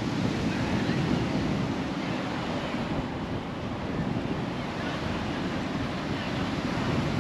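Steady low rumble of wind buffeting the microphone, mixed with the wash of surf from the beach.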